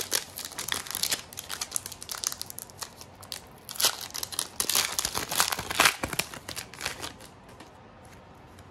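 Foil wrapper of a Pokémon booster pack crinkling and tearing as it is opened: a dense run of crackles with louder bursts midway, thinning out near the end.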